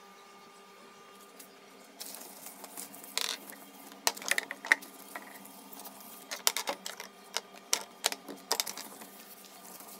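Toiletry bottles clicking and knocking against a glass-topped dressing table as they are handled during cleaning, in scattered sharp taps with a short hiss about three seconds in, over a steady faint hum.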